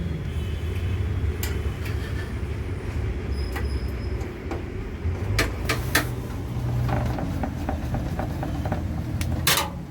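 Steady low rumble with scattered sharp metallic clicks and ticks, made by screws and a screwdriver against a metal PC case as the motherboard is screwed in.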